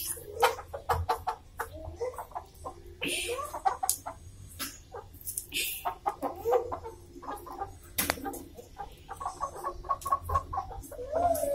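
Domestic chickens clucking in short, repeated calls, with scattered sharp clicks among them.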